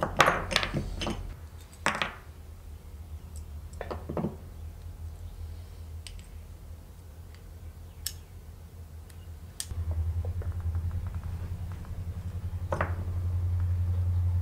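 Scattered metallic clicks and clinks of a screwdriver prying at a moped's drum-brake backing plate and of the brake shoes being handled. A cluster of clicks comes first, then single clinks every few seconds, over a steady low hum that gets louder about ten seconds in.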